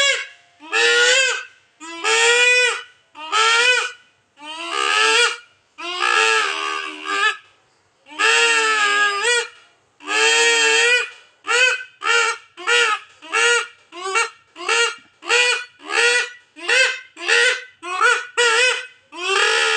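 Homemade terompet (toy horn) blown loudly in repeated honking blasts, each wavering in pitch. The blasts are about a second long at first, then from about halfway through come as quicker short toots, roughly two a second.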